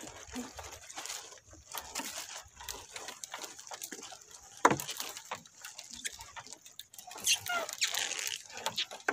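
Wet gill net being hauled by hand over the side of a wooden outrigger canoe: water dripping and splashing off the mesh, with irregular small clicks and knocks as the net and its weights come aboard. One sharp knock about halfway through is the loudest sound.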